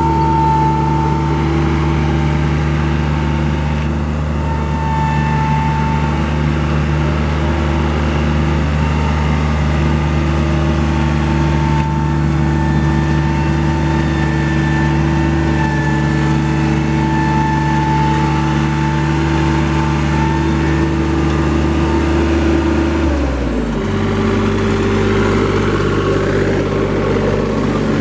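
The Yanmar 3TNV84 three-cylinder diesel of a John Deere 3225C reel mower runs steadily at working speed as the mower drives over grass. Near the end it slows to a lower, steady idle.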